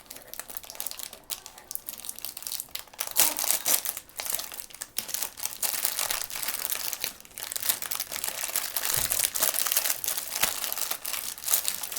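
Plastic blind-bag packaging crinkling and crackling as it is handled and opened, in dense, irregular crackles.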